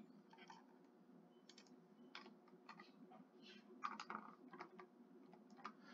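Faint computer keyboard typing: scattered, irregular keystrokes as digits are entered, the loudest about four seconds in.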